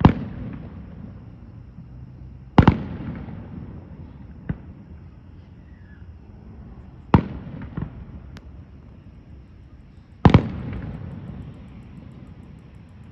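Aerial fireworks shells bursting overhead: four loud booms a few seconds apart, each trailing off in a rolling echo, with a few smaller pops between them.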